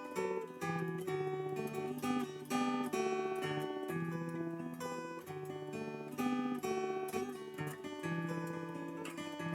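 Morris W-100D steel-string acoustic guitar with Martin custom light strings, fingerpicked with a thumb pick and finger picks. A steady run of picked melody and chord notes rings over sustained bass notes.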